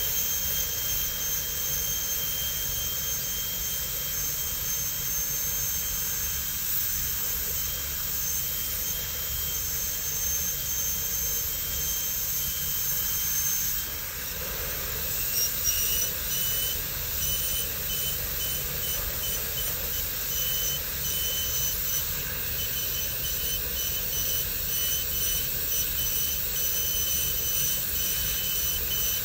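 High-speed dental handpiece with a diamond bur whining as it cuts a crown preparation into a plastic typodont tooth, with a steady hiss from its water spray. About halfway through the whine briefly drops away, then spins back up with a short rising pitch.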